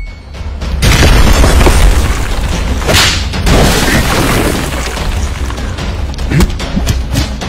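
A loud, deep boom about a second in, running on as a heavy rumbling noise with a further surge about three seconds in and a few sharp hits near the end.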